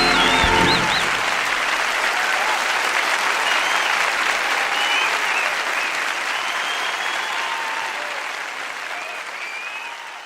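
Audience applauding at the end of a live song, the music's last notes dying away about a second in. The applause fades slowly, with a few short high cries over it.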